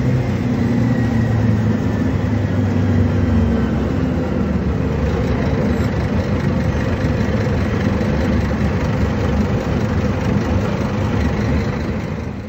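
Scania DC09 five-cylinder in-line diesel engine of a Scania K250 UB city bus running. A steady low engine note for the first few seconds gives way to a rougher, noisier engine sound.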